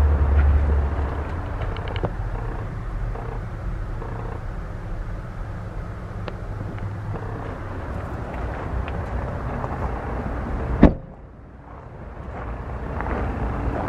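A pickup truck's door shutting with a single thud about eleven seconds in, over a steady low rumble.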